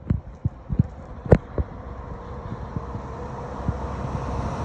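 A road vehicle approaching, its engine and tyre noise rising steadily and growing louder. A few brief thumps sound in the first second and a half.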